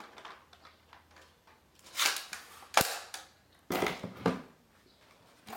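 Plastic airsoft M4 rifle being handled as its magazine is pushed in: a few scraping clatters and one sharp click about three seconds in.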